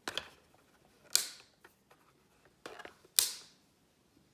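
Plastic rotary selector knobs on a four-outlet garden-hose irrigation valve unit being turned, clicking into position: a few separate sharp clicks, the loudest about a second in and just past three seconds in.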